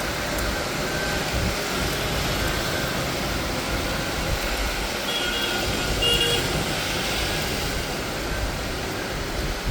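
Steady rain falling, an even hiss with no pauses. A few faint short high tones sound about five to six seconds in.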